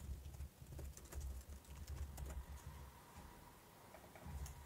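Faint typing on a computer keyboard: irregular key clicks over a low rumble.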